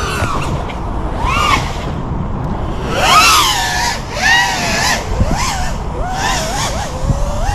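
FPV quadcopter's brushless motors and propellers whining, the pitch sweeping up and down again and again as the throttle is punched and eased through turns, with the loudest surge about three seconds in. A rough rush of wind over the onboard microphone runs underneath.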